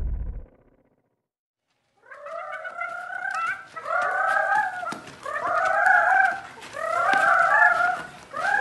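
Music fades out in the first half second; after a short silence, chickens cluck over and over, a burst of clucking about once a second.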